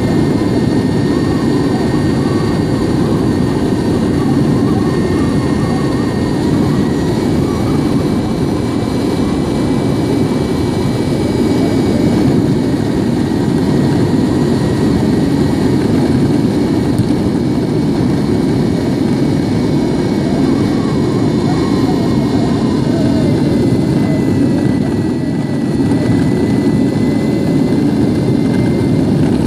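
Metroboard electric skateboard rolling at speed over coarse asphalt: a steady, loud, low road rumble from the wheels, with a thin high whine from the electric drive running along above it.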